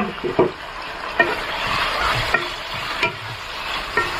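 Chicken pieces being stirred into sizzling manchurian sauce in a frying pan: a steady frying hiss, with sharp knocks of the spatula against the pan about once a second.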